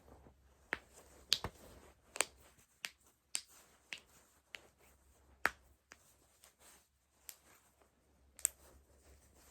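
A run of sharp joint cracks and pops during a chiropractic-style manipulation, about a dozen at irregular intervals, a few much louder than the rest.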